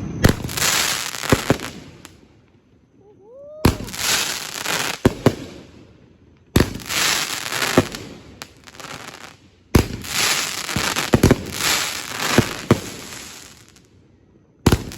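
Consumer aerial fireworks going off: five sharp bangs a few seconds apart, each followed by a couple of seconds of crackling.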